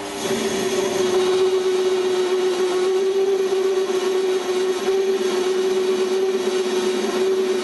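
Metal lathe grooving a spinning workpiece with a parting tool: a steady pitched whine over the cutting noise, beginning as the tool bites. The whine is the tool chattering in the cut.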